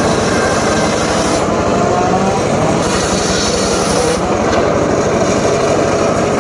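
Homemade engine-driven circular saw cutting jowar wood: the engine runs steadily under load while the blade's hissing cutting noise comes and goes, dropping out briefly about a second and a half in and again around four seconds.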